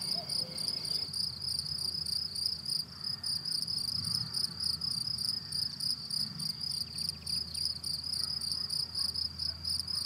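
An insect stridulating in a meadow: a steady high-pitched chirring with a fast, even pulse.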